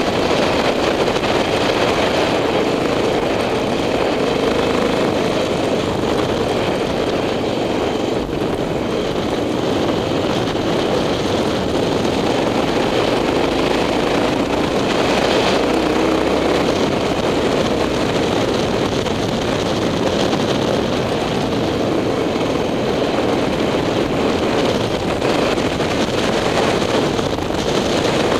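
Motorcycle engine running at a steady pace while riding a dirt track, heard from on the bike.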